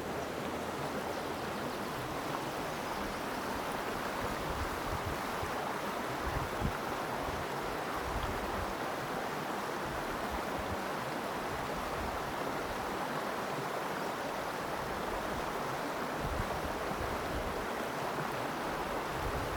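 Small mountain creek running over rocks, a steady, even rush of water.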